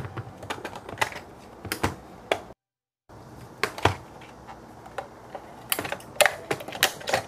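Scattered sharp clicks and knocks of hard plastic being handled: the battery cover of a plastic toy coin bank coming off and AA batteries being fitted against its spring contacts. A brief dead silence breaks in a little before halfway.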